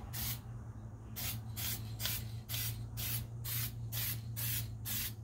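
Aerosol rattle can of spray paint hissing in short bursts, about two a second, as it is sprayed onto the engine bay's sheet metal.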